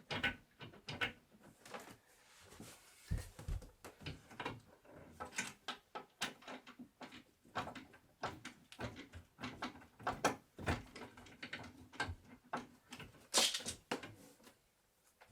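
Irregular wooden knocks, taps and clatter as wooden bed parts are handled and fitted together, in a small room, with a sharper, louder knock near the end.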